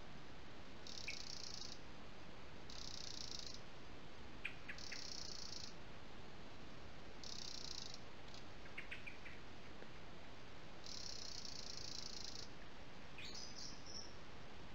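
An insect stridulating: a dense, high buzzing trill in bursts of about one to one and a half seconds, repeated several times with gaps between. A few short bird chips come midway, and a brief bird call sounds near the end, over a steady hiss.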